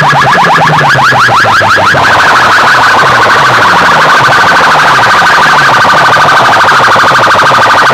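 A DJ sound system's loudspeakers blasting an electronic siren effect at full volume. Rapid rising chirps, many per second, run for about two seconds and then settle into a steadier warbling wail over a low repeating bass sweep.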